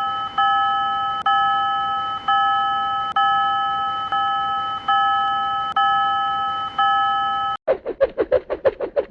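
A Japanese railroad crossing warning bell rings in a cartoon: an electronic ding re-struck a little faster than once a second. It cuts off suddenly near the end and gives way to a fast warbling sound effect.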